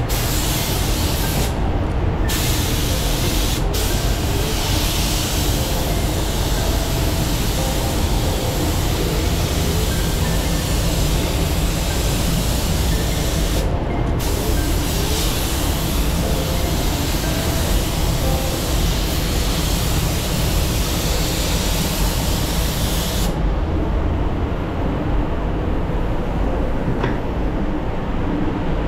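Iwata WS-400 Series 2 paint spray gun spraying: a loud, steady hiss of atomising air and paint, cut off briefly when the trigger is let off about 2 s, 4 s and 14 s in, and stopping about 23 s in. A steady low rumble runs underneath throughout.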